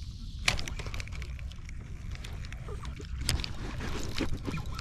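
Spinning reel being worked from a canoe: a sharp click about half a second in as the bail is flipped, then irregular small ticks and knocks of the reel and rod handling over a low rumble.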